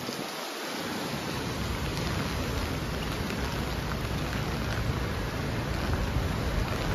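Heavy storm rain falling steadily, with a low rumble underneath.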